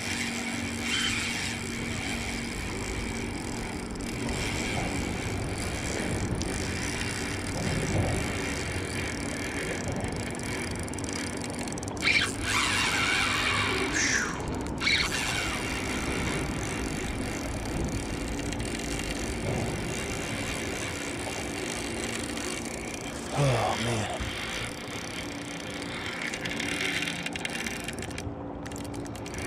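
Shimano Sahara 2500 spinning reel's drag buzzing steadily as a big hooked fish, a cownose ray, runs and strips line off against it. A couple of louder sweeping sounds come through about halfway and again about two thirds of the way in.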